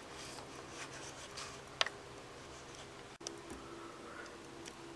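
Quiet room with a few faint clicks, one sharper click a little under two seconds in.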